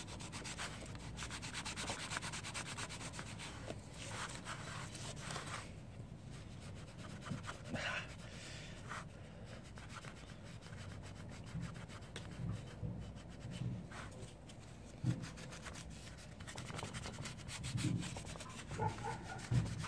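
A Scotch-Brite pad scrubbing fast back and forth on a GY6 scooter's aluminium cylinder head to polish off old deposits. It is busiest in the first five seconds or so, then lighter, with a few light knocks near the end as the head is handled.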